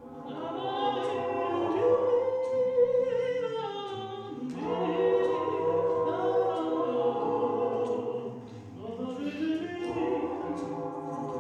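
Choral singing: several voices holding long notes in harmony, sliding between pitches, in three swelling phrases.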